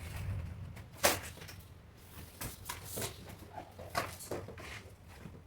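Irregular handling noises from unpacking a boxed vacuum cleaner: knocks, scrapes and rustles, the loudest a sharp knock about a second in, over a low steady hum.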